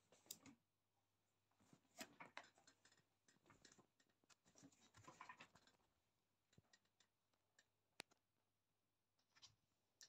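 Faint scratching, rustling and light clicks of a cat shifting about on a swiveling fabric office chair, with one sharp click about eight seconds in.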